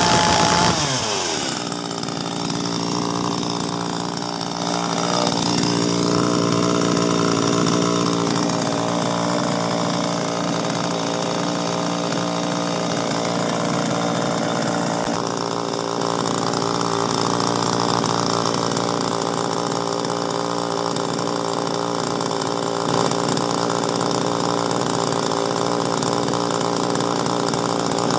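Topwe CN-25 small two-stroke 25 cc chainsaw engine running with its newly fitted spark plug. It is revved high at the start, drops back within about two seconds, and then idles steadily, with a slight rise in speed for a few seconds early on.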